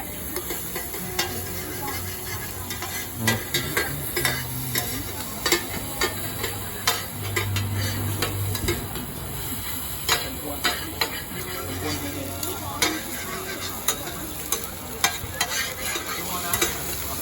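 Oyster omelette frying in hot oil, sizzling steadily, with a metal spatula scraping and clicking against the pan again and again.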